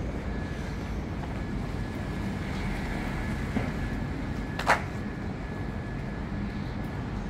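Steady low rumble of city traffic in the background, with a single short, sharp higher-pitched sound about two-thirds of the way through.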